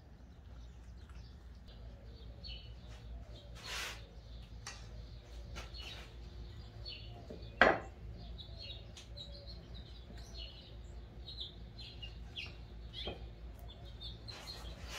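Faint chirping of small birds all through, with a brief rasp about four seconds in. About halfway through comes a single sharp wooden knock as a wenge strip is set down on the glued board; this knock is the loudest sound.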